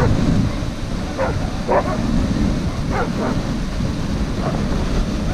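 Running sled dogs giving a few short barks while pulling the sled, over a steady low rush of the sled moving over snow.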